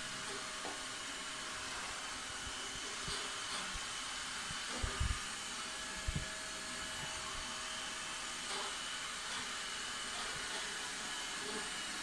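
Roborock S55 robot vacuum running: a steady whirring hiss from its suction fan with a faint high whine, broken by a few dull thumps about five and six seconds in.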